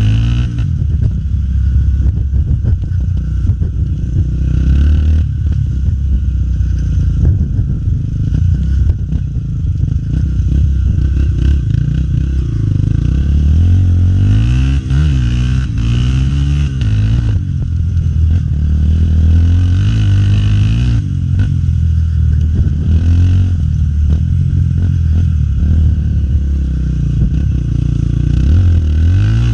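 Honda XR250 Tornado dirt bike's single-cylinder four-stroke engine under way, its revs rising and falling again and again as it is ridden, with clattering and scraping over rough ground.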